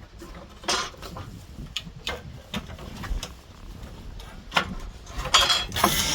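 Irregular knocks and metallic clinks of hand tools working against wooden deck boards, a few each second and busier near the end.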